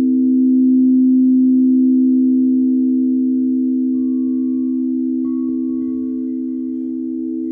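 Singing bowl ringing with a sustained, steady hum of several low tones. It swells about a second in and then slowly fades, and a faint higher tone joins about four seconds in.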